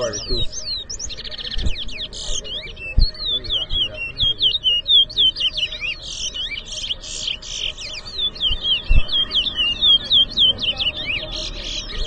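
Towa-towa seed finches singing against each other in a whistling match: a dense, unbroken run of quick, downward-sliding whistled notes. A few dull thumps fall at scattered moments.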